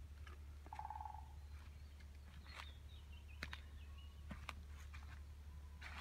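Footsteps rustling and crunching through fallen leaves and twigs, with small snaps. A bird calls twice: briefly about a second in, then with a stepped, falling call in the middle.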